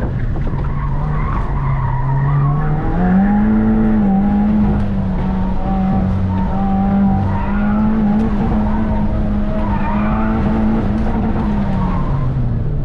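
Subaru WRX's turbocharged flat-four engine driven hard, heard from inside the cabin, with tires squealing through tight cone turns. Revs climb about three seconds in and hold high, then drop near the end as the car slows.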